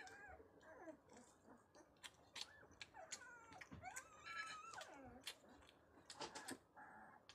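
A young puppy whimpering while being bottle-fed, short whines that slide up and down, the loudest and highest-pitched about four seconds in. Faint sharp clicks of suckling at the teat run between the cries.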